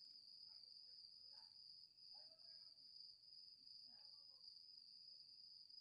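Near silence, with crickets trilling faintly and steadily on one continuous high note.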